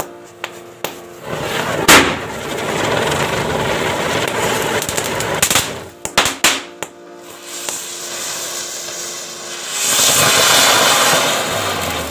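Firecrackers going off: a run of sharp bangs and crackling, the loudest bang about two seconds in and a quick cluster of bangs around six seconds, then a hissing spray near the end. Background music plays under it.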